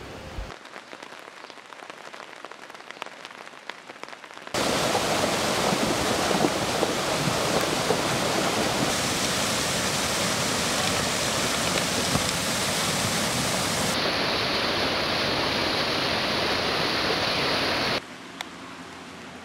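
Rain falling, with small drop ticks. About four and a half seconds in, it cuts abruptly to the much louder rush of a fast torrent of muddy floodwater. Near the end it cuts back to the softer sound of rain.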